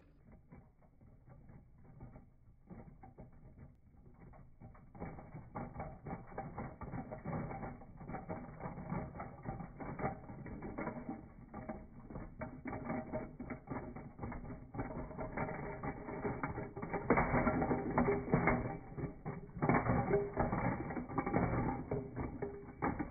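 Toy earthquake shake table rattling with rapid, dense clicking as its knob is turned, the tower of plastic blocks on it rattling. It starts faint, grows louder, and is loudest in the last several seconds, as blocks shake loose from the tower.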